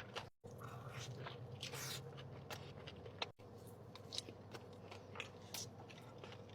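A person chewing and biting into a burger close to the microphone: faint mouth sounds with small crisp clicks, broken twice by a brief moment of silence.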